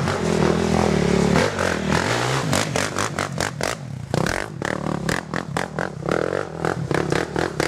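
Sport quad (ATV) engine revving in uneven bursts, strongest in the first second and again near the end, mixed with many sharp clattering knocks and scrapes.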